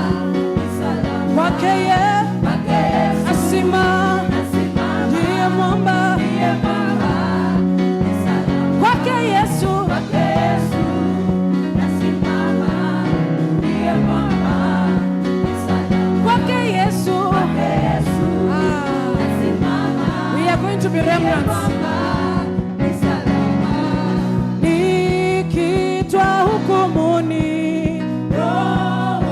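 Live gospel worship music: voices singing over a band, with steady bass notes and drums keeping a regular beat.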